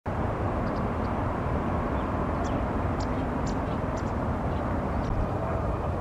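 A steady low rumble of distant traffic, with faint, short, high bird chirps scattered through it.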